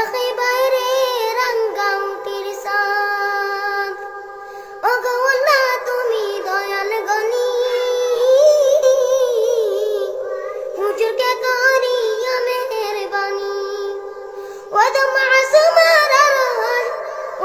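A high voice singing a Bengali gojol, an Islamic devotional song, in long ornamented phrases with a wavering, decorated melody; new phrases begin about five, eleven and fifteen seconds in.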